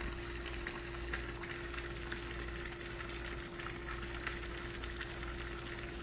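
Microwave oven running with a steady hum, with faint scattered crackles and ticks from an iPhone 6 burning inside it.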